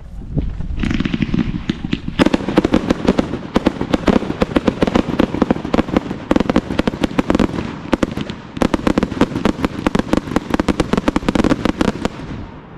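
Raccoon Fireworks 'Red White Blue Tails to Trueno' 100-shot cake firing: a dense, rapid barrage of launches and loud salute reports, many per second. It eases briefly about eight seconds in, then resumes before dying away near the end.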